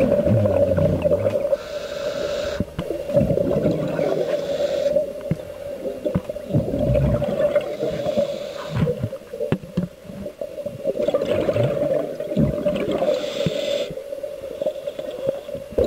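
A scuba diver breathing underwater through a regulator: a hissing inhalation every few seconds (four in all), each followed by a burst of bubbling exhaust bubbles. A steady hum runs underneath.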